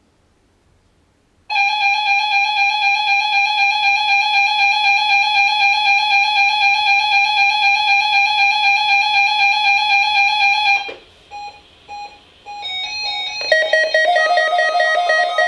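Midland WR-301 weather radio sounding its alert for a NOAA Weather Radio required weekly test: a loud, steady, high-pitched buzzer tone that starts about a second and a half in and lasts about nine seconds. It breaks into a few short beeps, then changes to a different tone pattern of several pitches near the end.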